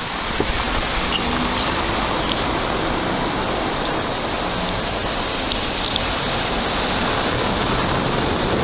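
Steady rushing noise of outdoor street ambience, an even hiss without any clear single event.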